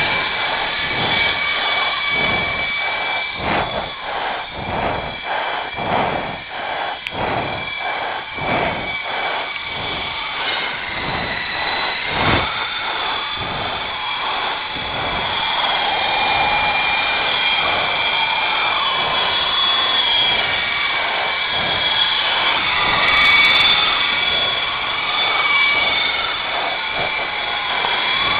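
Small electric motors of a Syma S033G RC helicopter whining steadily with the rotor running, with a pulsing flutter about twice a second during the first ten seconds.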